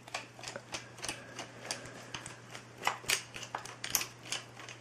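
Light, irregular metallic clicks and ticks, a few a second, as a flathead screwdriver turns the reverse-thread retaining screw out of a cordless drill's chuck, over a faint steady hum.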